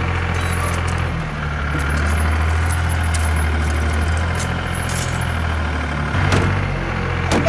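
A tractor engine idling steadily, a low hum with scattered light clicks and knocks.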